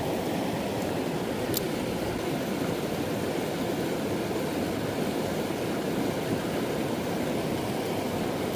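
Water pouring over a low dam spillway and churning below it: a steady rush of whitewater.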